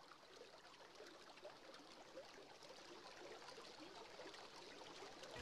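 Faint running water, a steady noise full of small splashing blips, getting slightly louder.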